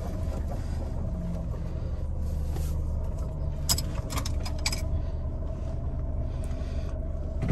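Jeep Renegade running with a steady low rumble, heard from inside the car, with a few light clicks and rattles about halfway through.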